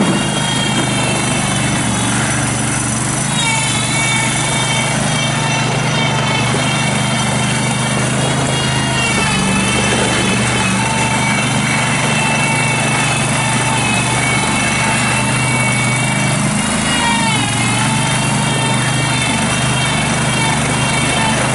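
Kohler Command Pro 20 hp V-twin gas engine of a Terramite T5C compact backhoe loader running steadily. A high whine rides above it and dips in pitch three times, about 3, 9 and 17 seconds in.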